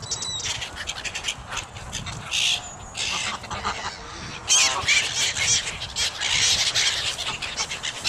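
A crowd of Canada geese and gulls calling around people feeding them: overlapping honks and sharp high calls, loudest about four and a half seconds in.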